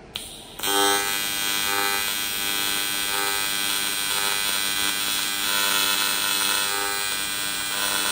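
Welding arc buzzing steadily on the cold air intake tubing, starting about half a second in after a short click.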